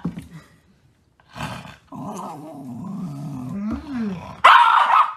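Dog growling low and steady for a couple of seconds, then giving a loud, short snarl near the end.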